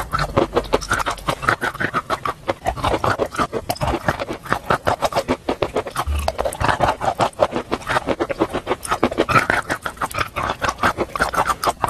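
Close-miked chewing of crunchy chalk coated in paste: a steady, rapid run of crisp crunches and wet clicks.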